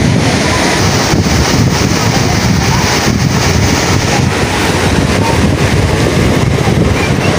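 Sea wind buffeting a phone microphone in a loud, steady low rush, with surf breaking on the beach behind it.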